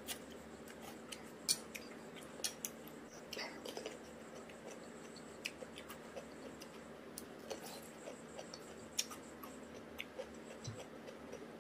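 Faint, scattered clicks and smacks of someone eating: wet chewing of noodles and cucumber, with metal forks now and then tapping a ceramic plate.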